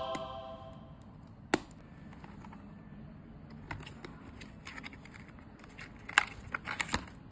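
Scattered small clicks and taps of hands handling a present's packaging, a sharp one about one and a half seconds in and a quick cluster near the end. A ringing musical tone dies away at the start.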